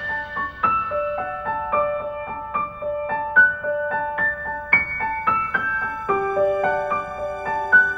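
Calm instrumental background music: a piano-like keyboard playing a gentle melody of single notes, struck one after another.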